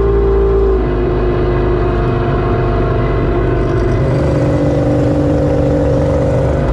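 Outboard motor of an F1 tunnel-hull race boat running loud and steady on the water. Its pitch changes about four seconds in.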